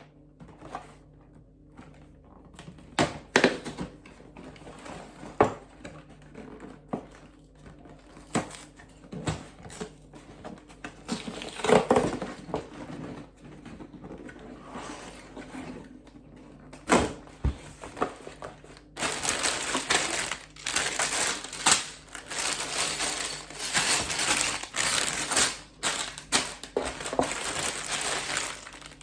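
Plastic Lego pieces being handled: scattered clicks and taps, then from about two-thirds of the way through a dense crinkling rustle of plastic.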